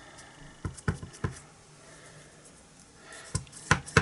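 Light knocks and clicks of stamping supplies being handled on a craft desk: three around the first second, then three more near the end.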